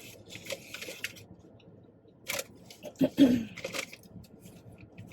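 Rustling and handling noises with several sharp clicks, and a short hummed 'mm' about three seconds in.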